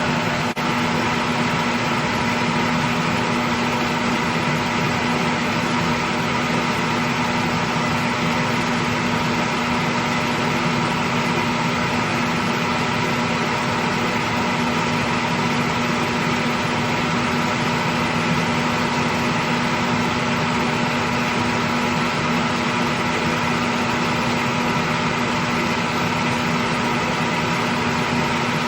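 Steady mechanical hum and rushing noise, like a running fan or motor, holding constant with a few fixed tones and one brief click just after the start.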